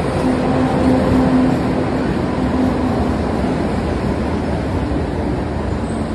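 MBTA Green Line light-rail train rolling along an underground station platform: a steady rumble of wheels on rail, with a low steady hum that fades out about halfway through.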